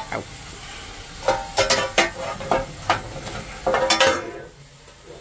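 Steel coal shovel scraping and clanking against the steam locomotive's metal footplate and firehole, several ringing metallic scrapes between about one and four seconds in, over a steady hiss.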